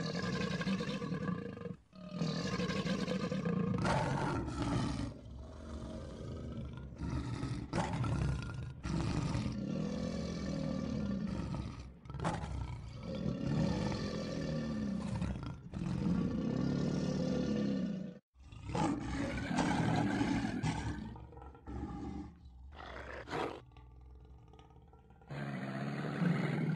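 Lions roaring in loud, repeated calls that rise and fall in pitch, one every two seconds or so, with a few abrupt cuts and a quieter stretch near the end.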